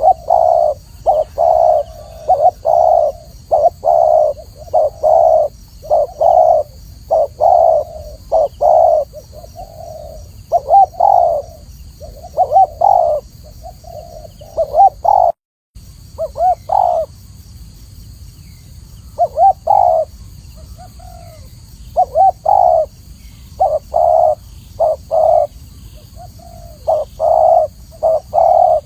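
Spotted dove (Spilopelia chinensis) cooing: loud, clear, repeated short coos in phrases, with a pause of a couple of seconds around the middle.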